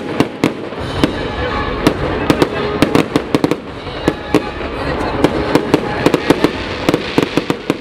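Fireworks display: aerial shells bursting in quick succession, many sharp irregular bangs and crackles over a continuous rumble.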